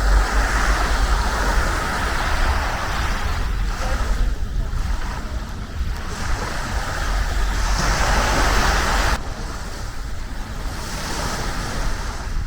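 Sea waves breaking and washing up the beach, swelling and fading in surges every few seconds, with wind rumbling on the microphone.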